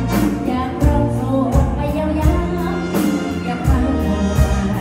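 Live Isan folk-pop band music with a heavy bass and a steady beat, and a woman's voice singing over it.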